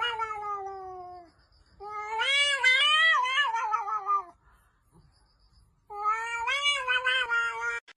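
Cat meowing: three long, drawn-out yowls. The first falls in pitch, the second wavers up and down, and the third rises and falls once.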